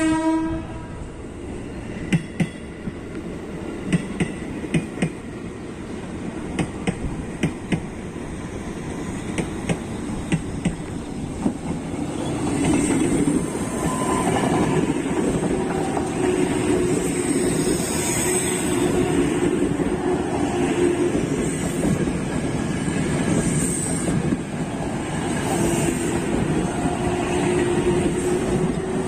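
Tokyo Metro 6000 series electric commuter train sounding a short horn blast at the start, then approaching with a string of sharp wheel clicks over the rail joints and points. From about 12 seconds in it passes close by, a loud steady wheel rumble with a steady hum under it.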